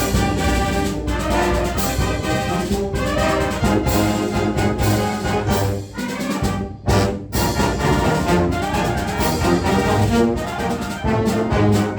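Brass ensemble with trombones and trumpets playing a lively ragtime march, with two short breaks in the sound just past the middle.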